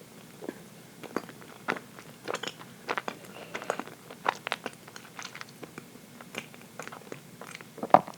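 Close-up mouth sounds of someone chewing dense chocolate cake: a run of short wet clicks and smacks, several a second, with one sharper click near the end.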